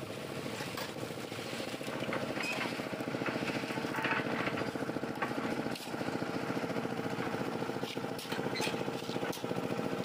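Small engine-driven concrete mixer running steadily with a rapid, even chug, its drum turning as it tips out a batch of mixed concrete.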